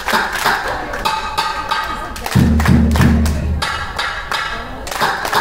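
Belly dance music playing loud, with a quick run of sharp percussion strikes over a melody. A deep bass part comes in for about a second near the middle.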